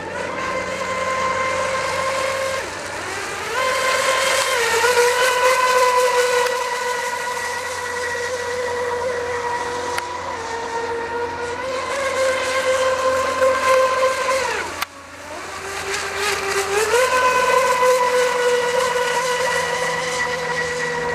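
Radio-controlled carbon-fibre racing catamaran running flat out: a steady high-pitched motor whine with overtones. The pitch rises as the boat accelerates about four seconds in and again near the end. About fifteen seconds in, the whine drops sharply and almost cuts out as the throttle comes off, then climbs back.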